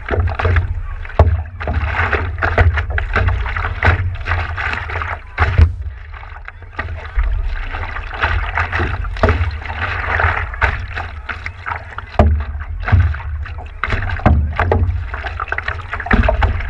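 Stand-up paddleboard paddle strokes splashing in the sea, with water sloshing and slapping against the board under a low, steady rumble. The splashes come irregularly, a stroke every second or two.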